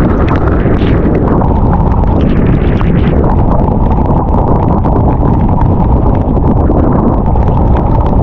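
Wind buffeting the microphone aboard a small boat at sea: a loud, steady, noisy rumble with a few faint clicks.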